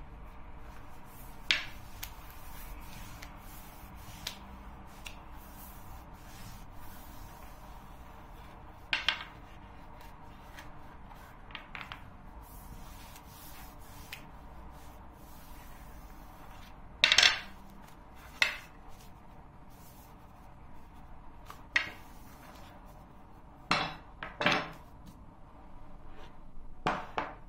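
Irregular knocks and clatters of a long thin wooden rolling pin on the table as a paper-thin sheet of dough is rolled around it and rolled out, about ten in all, the loudest a little past the middle.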